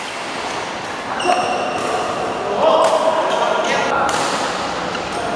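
Badminton rally: sharp racket strikes on the shuttlecock and players' footwork thumping on the court, with voices calling out in the hall.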